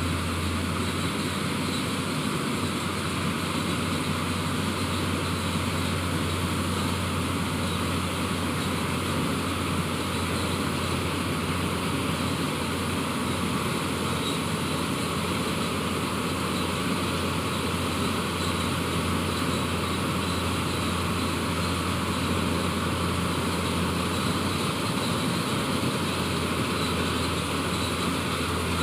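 Malkit combine harvester's diesel engine running steadily, a constant low drone with no change in speed.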